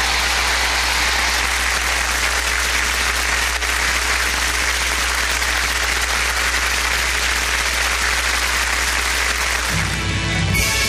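Studio audience applauding steadily. About ten seconds in, the music for a tarantella dance starts.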